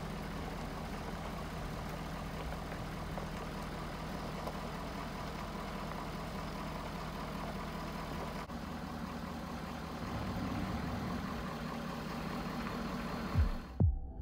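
Vehicle engine running steadily at idle or a slow crawl, swelling a little about two-thirds of the way in. Near the end it cuts off and loud electronic drum beats start.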